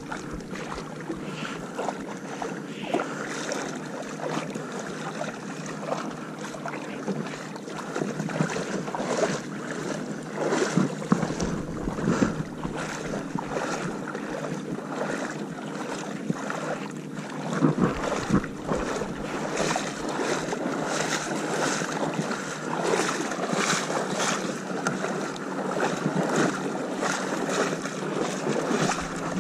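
Wind and water noise with a faint steady low hum underneath and scattered knocks and clicks.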